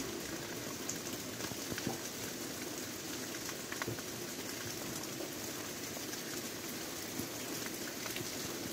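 Heavy rain falling steadily: an even hiss with many sharper drop hits scattered through it.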